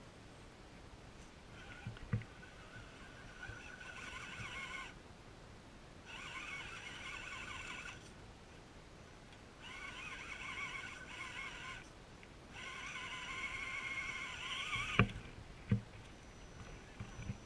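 Electric drive motor and gearbox of an RC4WD Gelande II Defender scale crawler whining in four throttle bursts of about two seconds each as it crawls over roots and ruts, the pitch wavering with the load. A few sharp knocks, the loudest near the end.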